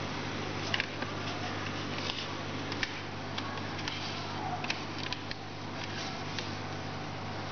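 Aquarium pump humming steadily, under an even hiss and a scattering of faint, irregular clicks.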